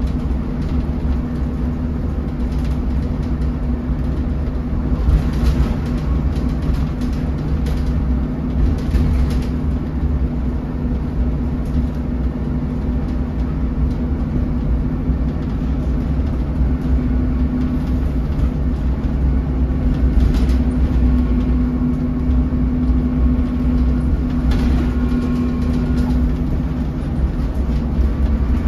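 Cabin sound of a 2008 MAN 16.240 Designline bus on the move: a steady low engine drone and road noise, with a few brief clatters from the body and fittings.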